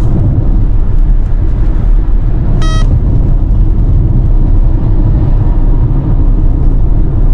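Steady road and tyre noise inside a car cabin at highway speed, with one short electronic beep from a dashboard radar detector about three seconds in.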